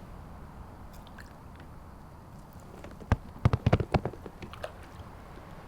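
A quick, irregular run of sharp clicks and knocks about three seconds in, over a low steady background hiss.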